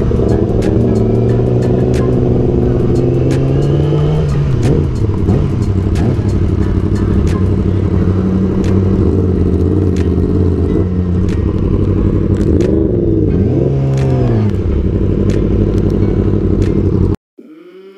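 Two Yamaha sport bikes, the R6 carrying the camera and an R1M just ahead, running at low speed, with the revs rising and falling several times as the throttle is worked. The engine sound cuts off abruptly near the end.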